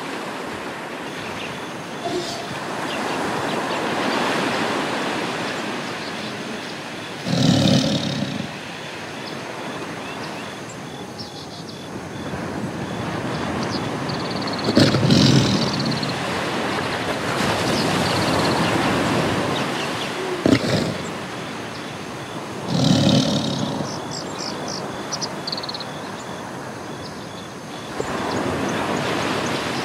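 Sea surf washing in slow swells, with a big cat's roar three times, about eight seconds apart, and one short sharp animal sound between the last two.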